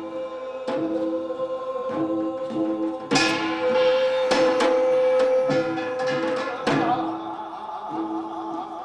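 A male voice chanting a Korean bi-nari blessing song over traditional Korean percussion. Sharp drum and gong strikes fall at uneven intervals under a long held note, and a wavering sung line comes in near the end.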